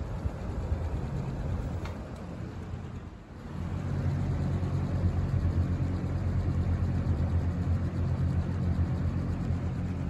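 A ten-year-old Lasko 3733 box fan running: a steady motor hum under the rush of air from the blade. It gets louder about three and a half seconds in, as the fan's air and sound come up close to the grille.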